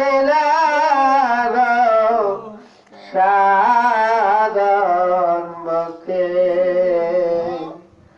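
A man singing a Bengali devotional gazal in three long, wavering phrases with short breaks between them, over a steady low drone.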